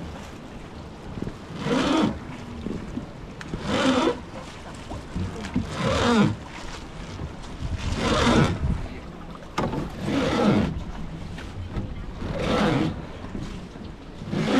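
Rhythmic swish-and-splash strokes about every two seconds, typical of a river boat's oar being pulled through the water, over a steady rush of water and wind.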